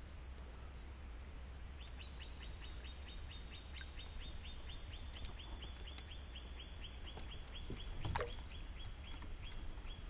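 Steady high-pitched buzz of a cicada chorus. From about two seconds in, short high chirps repeat about three times a second. About eight seconds in, a hooked rainbow trout makes a brief splash at the surface.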